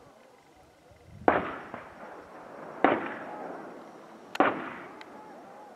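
Three hunting gunshots about a second and a half apart, each followed by a long echo rolling off across the valley: shots fired at a passing wild boar.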